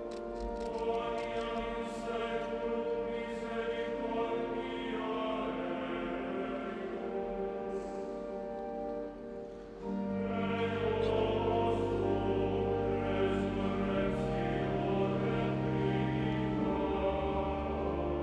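A choir singing slow sacred music in long, held notes. Deeper notes join about ten seconds in.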